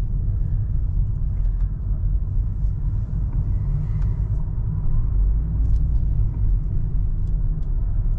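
Steady low rumble of a moving car heard from inside the cabin of a 2017 Toyota Prius, with a few faint ticks over it.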